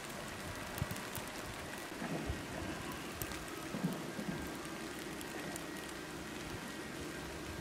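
Steady soft hiss of heavy wet snow falling, with a few faint short knocks.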